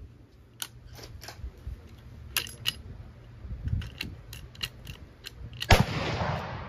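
A dozen or so small, sharp, irregularly spaced clicks from the windage adjustment of a red-dot sight being turned, moving the point of impact slightly right while zeroing. Near the end comes a much louder sharp crack that fades over about a second.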